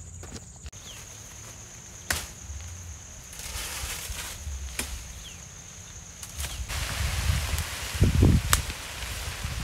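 Dry twigs and branches snapping as they are broken off by hand: sharp single cracks a second or two apart. Near the end come rustling and footsteps through tall grass as the branches are carried off.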